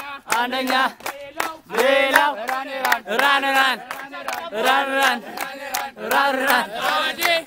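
A group of young men chanting a short repeated phrase together, with rhythmic hand clapping.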